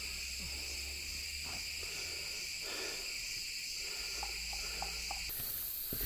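Steady, high-pitched chorus of forest insects, several droning tones at once, with a few faint ticks and scuffs beneath it.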